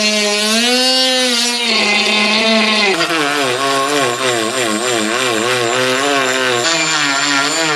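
Die grinder spinning a cartridge sanding roll against the aluminium Corvair engine block, rough-deburring casting flash and sharp edges. A continuous motor whine with a gritty hiss, its pitch wavering as the roll bears on the metal and dropping to a lower note about three seconds in.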